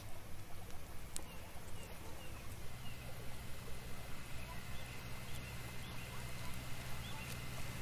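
Quiet outdoor ambience: a steady low hum under short, faint high chirps that repeat every half second or so, with a faint steady high tone entering partway through.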